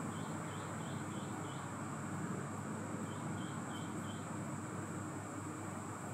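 Steady low hiss and hum of room and microphone noise, with a steady faint high whine. Over it come two runs of short high chirps, five and then four, each at about three a second.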